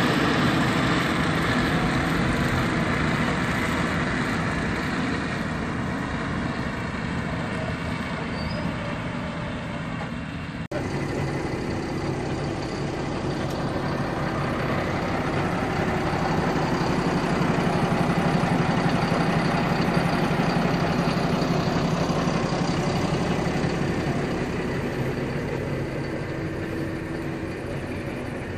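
Large tractor's diesel engine running loudly at close range as it pulls a Pöttinger loader wagon past. The sound breaks off for an instant about eleven seconds in, then swells again as the machine passes right by.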